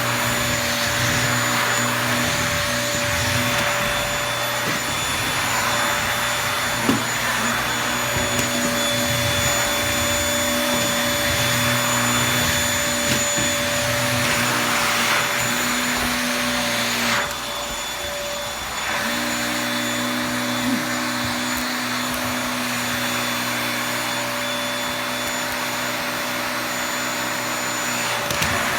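Toshiba VC-PB9 vacuum cleaner running steadily with a constant motor whine. About 17 seconds in, its sound dips and drops for about two seconds, then comes back. There are a few light knocks along the way.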